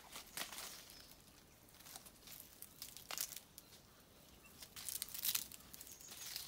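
Chickens scratching and pecking in dry leaf litter: faint, irregular rustles and crackles, with a louder cluster about five seconds in.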